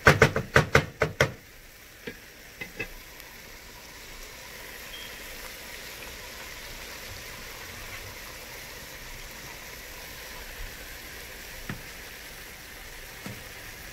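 A wooden spatula knocks about eight times in quick succession against a stainless steel pot at the start. After that come a few scattered clicks and a steady, quieter sizzle of bell peppers and onions frying in olive oil.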